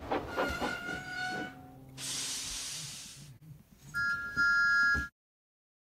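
Steam locomotive sound effects. A short rhythmic passage with held tones gives way to a burst of steam hiss about two seconds in. Near the end come two whistle blasts, a short one then a longer one, which cut off sharply.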